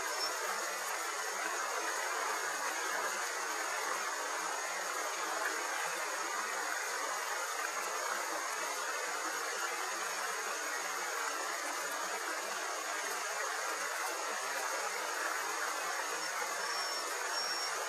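River water rushing steadily: an even hiss with nothing in the low end and no breaks.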